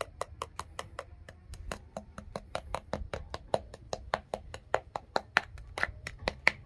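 Knife blade tapping quickly on the hard, crackling skin of a spit-roasted whole pig (lechon), about five or six sharp taps a second. The crisp taps show that the roasted skin has turned crispy.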